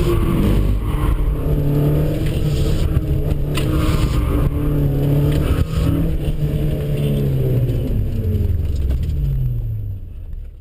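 Honda CRX's four-cylinder engine heard from inside the cabin, revving up and down hard through a slalom run with a break in the revs about halfway through. The pitch then falls as the car comes off the throttle and slows, and the sound fades out near the end.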